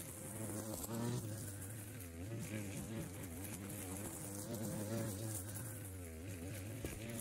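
Small engine of a wheeled push-type string mower running, heard from a distance as a buzz. Its pitch wavers up and down as the nylon line cuts through the grass under changing load.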